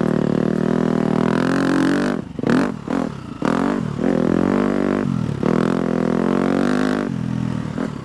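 A 250cc four-stroke single-cylinder motocross bike's engine running under way in second gear at steady revs. About two seconds in the throttle is chopped and blipped several times, then it pulls steadily again before the revs drop near the end.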